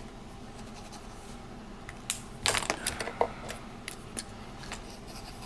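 Fountain pens being handled and set down: scattered sharp clicks and taps of caps and barrels against the table, the loudest cluster a little past two seconds in.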